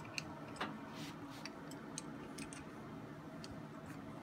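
Irregular light metal clicks and taps from the parts of a universal sight pusher tool being handled as its spacer is moved to the other side, with one slightly heavier click a little over half a second in.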